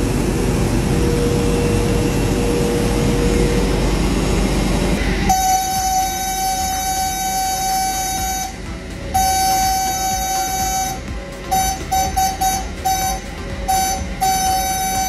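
Airbus A321neo ground-crew (mechanic) call horn in the nose wheel well. After a steady low rumble of ramp noise, it starts about five seconds in as one steady pitched tone. It is held for a few seconds, stops, sounds again, and then goes in a quick string of short blasts as the cockpit button is pressed and released.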